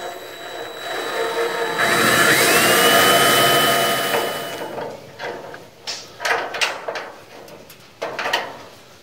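Cordless drill drilling through the sheet steel of the hood's inner panel. The motor whine rises in pitch as it speeds up, and the drilling is loudest from about two to four and a half seconds in. It is followed by a few light clicks and knocks of parts being handled.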